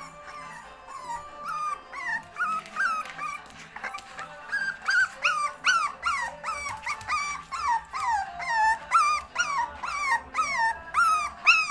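Puppy crying in short, high-pitched cries that each fall in pitch, sparse at first, then about two a second and louder from about four seconds in.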